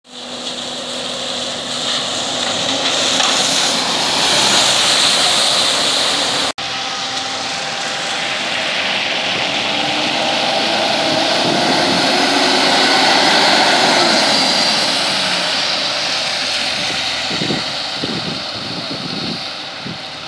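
City buses driving past on a wet road: diesel engines running under a steady hiss of tyres on wet asphalt, loudest as a bus passes, with an engine whine that rises and then falls in pitch around the middle. The sound drops out for an instant about six and a half seconds in.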